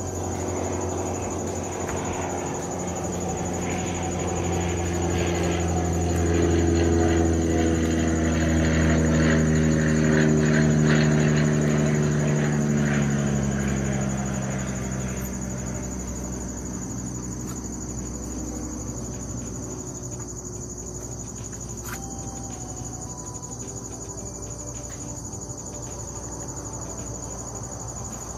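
A passing engine hums, growing louder over the first ten seconds or so and then fading, its pitch sliding slowly down as it goes. A steady high insect drone runs underneath.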